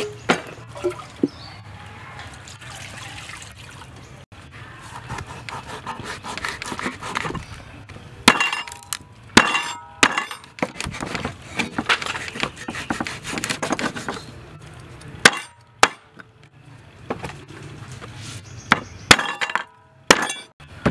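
A cleaver scraping the scales off a dried salted fish on a wooden chopping board, in repeated dry, crackling strokes with clinks of the blade. In the last few seconds come separate sharp knocks of the blade chopping down onto the board.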